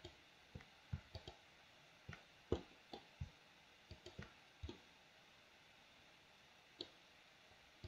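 Computer mouse and keyboard clicking: about a dozen quick, irregular, faint clicks over the first five seconds, then one more near the end.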